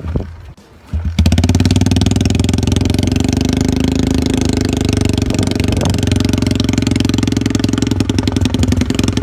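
Suzuki DR-Z110 pit bike's single-cylinder four-stroke engine being kick-started from cold: it catches about a second in and keeps running steadily.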